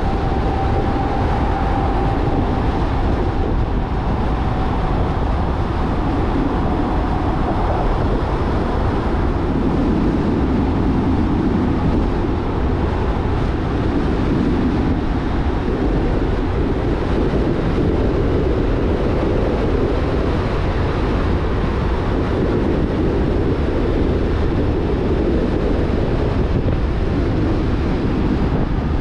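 Jeep Rubicon driving on a paved road: steady engine and road noise, with a faint high whine that fades out about eight seconds in.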